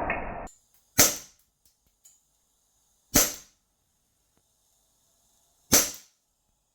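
Green-gas M9 Beretta airsoft pistol firing three single shots, each a sharp crack about two to two and a half seconds apart. It opens with a loud rushing hiss that fades and stops about half a second in.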